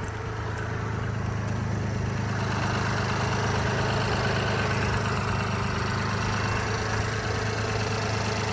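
Mini Cooper engine idling steadily with the hood open, a smooth, even hum that is very quiet for a running engine.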